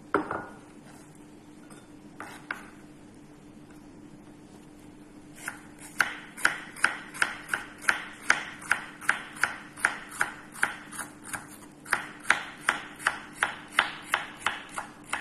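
Kitchen knife slicing bitter gourd (ampalaya) into thin rounds on a wooden cutting board: a steady run of sharp chops against the board, about two and a half a second, starting about five seconds in. Near the start there is a single knock as a ceramic bowl is set down on the board.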